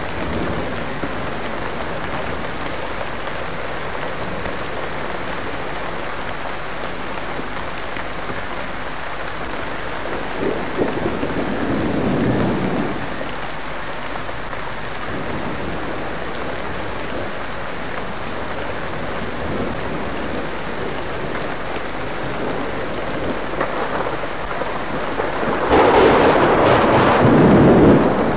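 Steady rain falling in a thunderstorm, with thunder rumbling twice: once about halfway through, and more loudly near the end.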